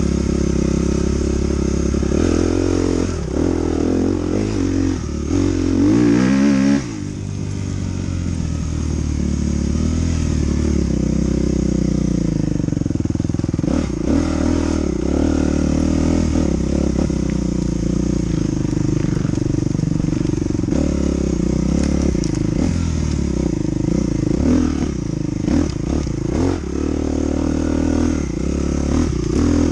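Dirt bike engine running under varying throttle while being ridden off-road. About six seconds in it revs up, rising in pitch, then drops off suddenly as the throttle closes, with scattered knocks and clatter from the bike over the bumps.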